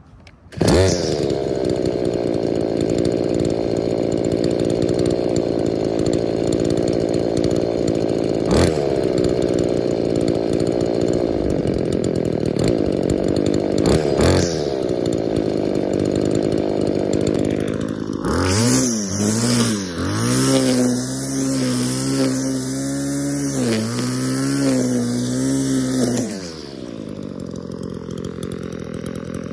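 Two-stroke string trimmer engine running at a fast idle while its carburettor's low-speed screw is turned, with two short rises in revs; from about 18 seconds in it is revved up and down several times with the trigger, then settles back to a quieter idle near the end. It is set rich on the low-speed screw to idle and burbles a little at throttle, which the owner puts down to a cracked purge bulb letting air into the carburettor's metering side.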